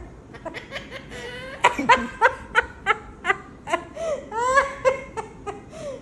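A woman laughing: a long run of short 'ha' pulses, about three a second, starting about a second and a half in.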